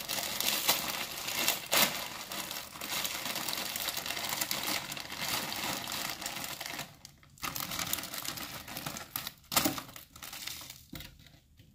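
Plastic bag crinkling and rustling as prepackaged frozen fruit and vegetables are shaken out into a blender jar, with a few sharp knocks. The rustling thins out about seven seconds in.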